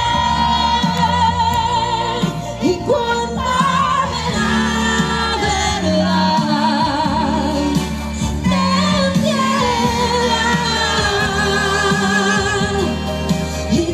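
Live music: a singer with a strong vibrato over a band with a steady bass line.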